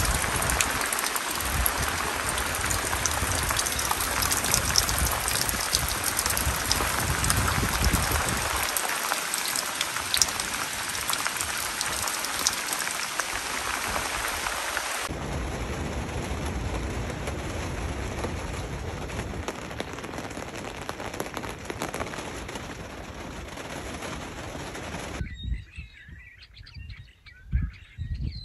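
Heavy steady rain falling on a tarp awning and canvas tent, with scattered sharper drop hits. The sound changes abruptly about halfway through, and near the end the rain cuts off and birds chirp.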